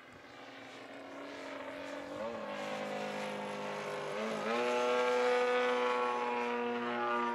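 Graupner Extra 300 RC plane's AGM-30 30 cc single-cylinder gasoline engine, with its four-chamber muffler, running in flight during its break-in. It grows louder as the plane comes close overhead. The pitch dips briefly twice, then holds steady and slowly sags as the plane draws away near the end.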